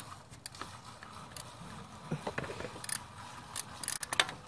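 Scattered metallic clicks and taps of a ratchet and socket being worked onto a coolant temperature sensor in a car engine bay, the socket not seating well on the sensor.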